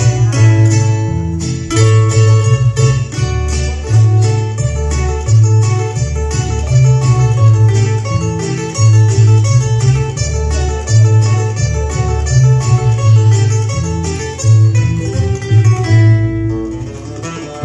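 Instrumental music on acoustic guitars, with a guitarrón playing a strong bass line under quick plucked and strummed chords and melody.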